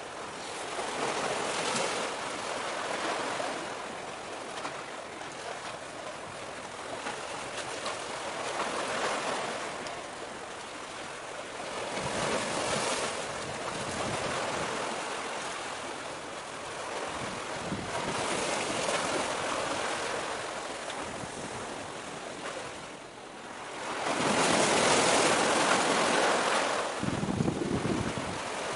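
Sea waves washing in against a breakwater, surging and fading about every five or six seconds, the largest surge near the end, with wind buffeting the microphone.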